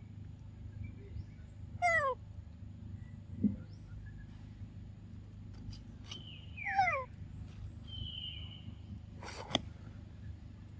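Two short animal calls about five seconds apart, each a quick cry that slides down in pitch, over a steady low background hum. A brief higher whistled note follows, then a single sharp click near the end.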